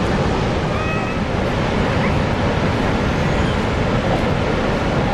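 Steady roar of Niagara's Horseshoe Falls, a dense even rush of falling water heaviest in the low range.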